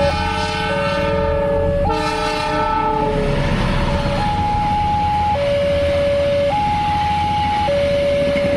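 Railway level-crossing siren sounding a steady two-tone hi-lo alarm, switching pitch about every second. A train horn sounds two chord blasts in the first three seconds, then the rushing noise of the train passing over the crossing takes over.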